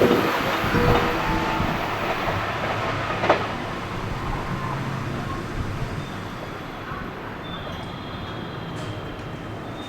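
Electric train running past on the line, its wheel and running noise fading steadily as it draws away, with a single wheel clack a few seconds in.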